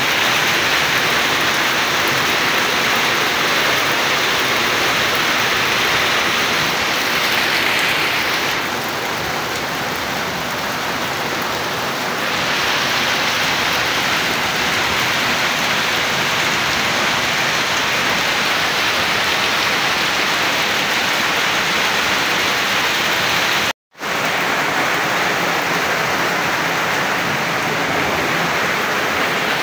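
Heavy rain falling steadily, a dense even hiss. It cuts out for an instant about three-quarters of the way through.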